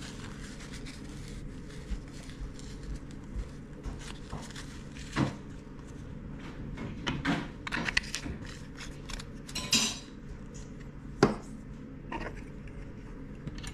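Scattered small clicks, taps and knocks of a plastic charger housing and a glue bottle being handled and set down on a desk, with one sharp click about eleven seconds in, over a steady low hum.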